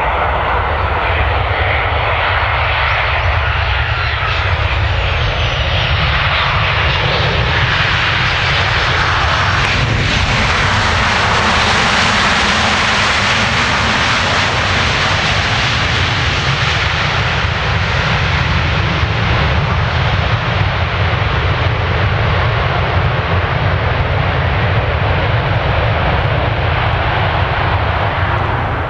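Boeing 737-800 airliner's CFM56-7B jet engines running through touchdown and the landing roll. A loud, steady jet noise with a falling whine early on builds to its loudest about halfway through as the plane passes close, then eases off near the end.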